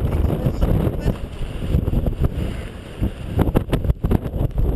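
Strong wind buffeting the camera's microphone, an uneven rumbling roar that rises and falls, with a few short knocks about three and a half seconds in.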